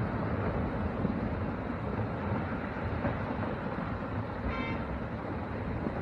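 Landslide, with rock and debris pouring down a cliff face in a steady low rumble. A short horn-like tone sounds briefly about four and a half seconds in.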